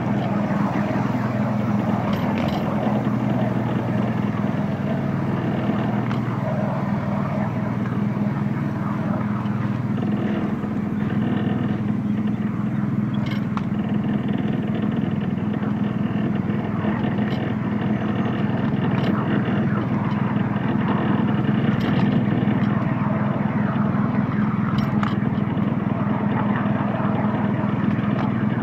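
Small petrol engine of a petrol-hydraulic miniature railway locomotive running at a steady pitch, with a few sharp clicks.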